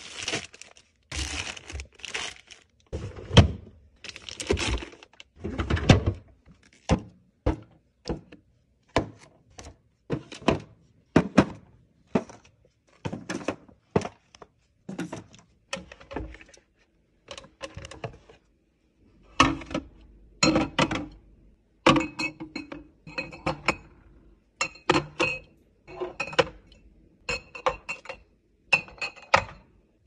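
Packaged food being put into a refrigerator by hand: plastic bags of salad rustling and packages and plastic containers set down on the shelves and in the drawer, a string of separate thunks and rustles about one a second. In the second half the knocks have a short ringing, clinking tone.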